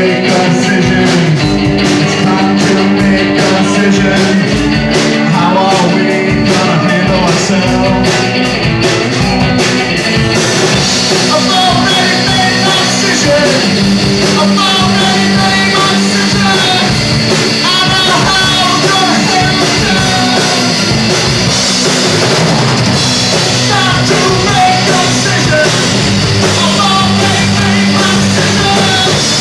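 Live rock band playing: amplified electric guitars and a drum kit. The sound grows brighter and fuller about ten seconds in.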